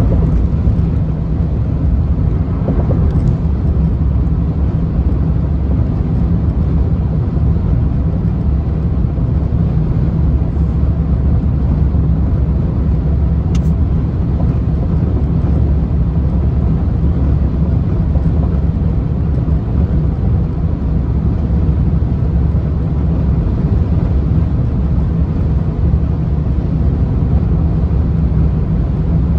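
Steady low rumble of a vehicle driving on the highway, engine and tyre noise without change.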